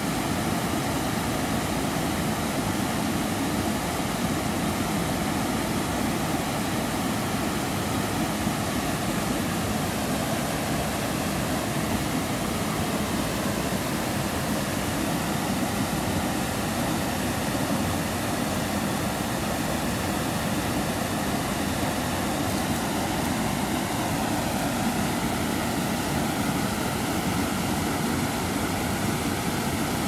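Small waterfall pouring over a rock ledge into a pool: a steady, even rush of falling and splashing water.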